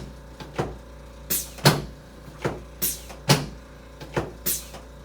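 Chiropractic drop-table section dropping under light thrusts: a repeated series of sharp clacks, about two or three a second.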